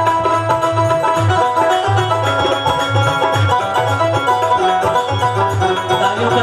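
Live devotional bhajan band playing an instrumental passage: a busy melody line over a steady, regular low drum beat.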